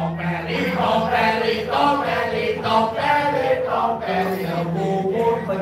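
A single voice singing a drawn-out, chant-like melody with long wavering notes, amplified over a loudspeaker, with a steady low hum underneath.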